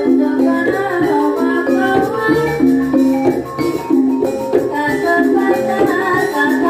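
Banyumasan gamelan music (gending) accompanying an ebeg dance: a busy pattern of quick struck notes over a steady drummed beat.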